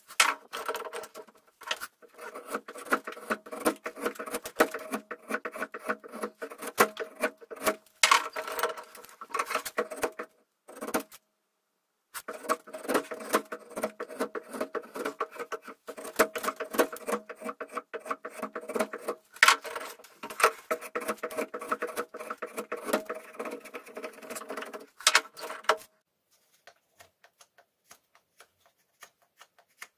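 A steel blade scraping and shaving bark off a wooden stick held in a vise: quick, rough scratching strokes with a ringing chatter from the blade. It pauses briefly about ten seconds in, stops about 26 seconds in, and only a few faint ticks follow.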